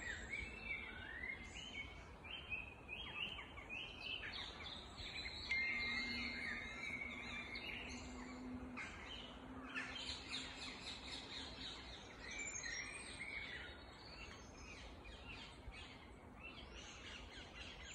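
Woodland birds singing together, a dense chorus of short chirps and trills from several birds, over a low outdoor rumble. A faint low hum comes in for a few seconds in the middle.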